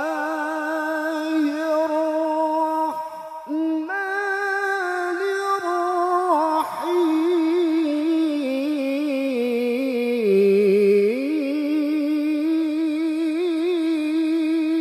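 A man reciting the Quran in the melodic tilawah style into a microphone: long held, ornamented notes with wavering pitch, broken only by brief breaths about three and seven seconds in. The pitch sinks to its lowest about ten seconds in, then climbs back up.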